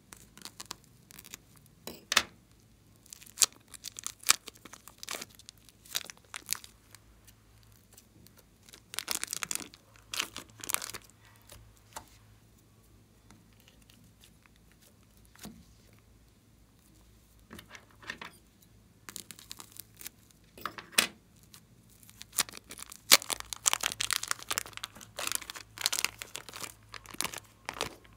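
Plastic piping bags crinkling and crackling as they are handled and squeezed, pressing soft clay out onto slime in a glass dish. The crackles come in irregular bursts with quiet gaps, busiest in the last third.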